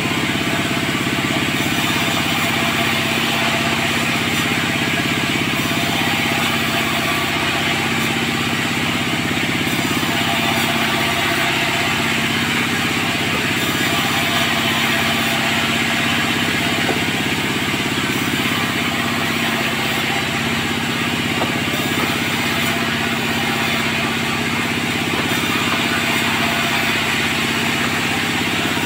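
Sawmill machinery running with a steady engine-like drone. Its pitch wavers only slightly, and there are no distinct cuts or impacts.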